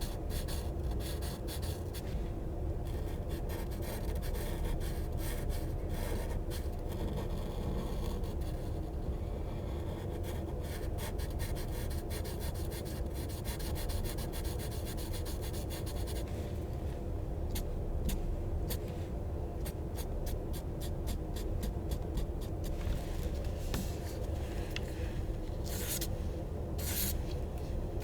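Pen scribbling on paper: many quick rubbing and scratching strokes, in dense runs at times and as separate sharp strokes at others, over a steady low background hum.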